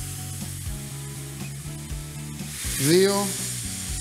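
Asparagus and onions sizzling in oil in a frying pan, under background music with held notes. A short swooping tone rises and falls about three seconds in.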